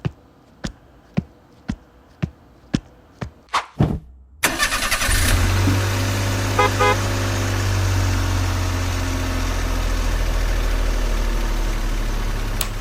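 Sharp taps, about two a second, for the first four seconds. Then an engine, the DIY miniature tractor's, starts suddenly and runs steadily at idle with a deep, even hum.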